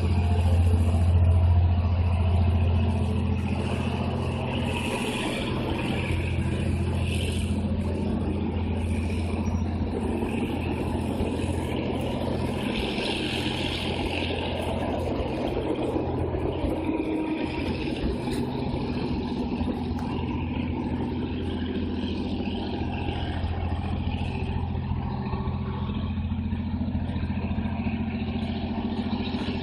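GM G-22 diesel-electric locomotive's two-stroke EMD diesel engine working as it pulls a passenger train away, its low drone loudest in the first few seconds. The coaches' wheels then rumble and click on the rails as they pass, loudest about halfway through, and the engine drone carries on steadily afterwards.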